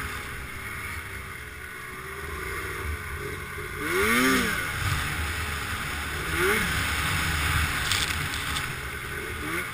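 Snowmobile engine running under throttle, its pitch swinging up and down, with a strong rev about four seconds in and a shorter one about two seconds later. A steady hiss runs underneath.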